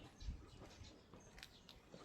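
Faint, quiet street ambience: soft footsteps and a few distant bird chirps.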